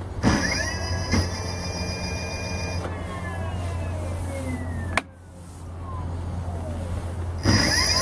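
Ebike rear hub motor whining as it is throttled up, during a test run of the repaired bike: the whine rises quickly, holds for about two and a half seconds, then falls away slowly as the wheel coasts down. There is a sharp click about five seconds in, and near the end the whine rises again under throttle.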